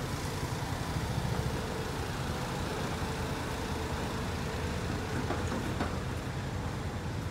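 Steady traffic rumble of cars on a city street, with a faint steady hum.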